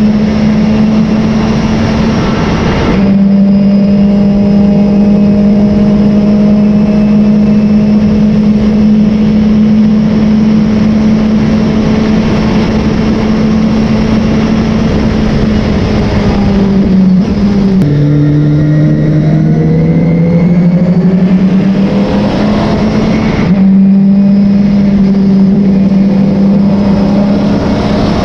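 Race car engine running hard at high revs, its pitch nearly steady. There is a brief lift about three seconds in. Near 18 seconds the pitch drops suddenly with a gear change, then climbs again over several seconds as the car pulls.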